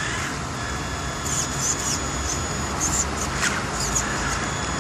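Traxxas Summit radio-controlled monster truck crawling up a curb, its electric motor and drivetrain straining, with short high squeaks and brief rising whines over a steady low rumble.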